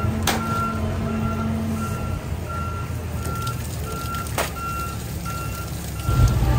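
A vehicle's reversing alarm beeping steadily, about one and a half beeps a second, over a low engine running. Two sharp knocks sound, one just after the start and one about four seconds in.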